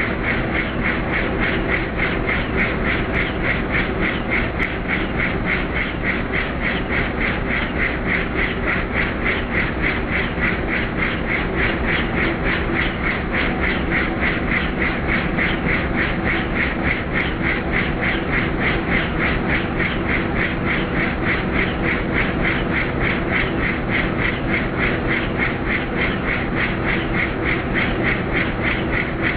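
Helicopter in flight, its rotor beating in a steady, rapid, even chop over a continuous engine and turbine noise.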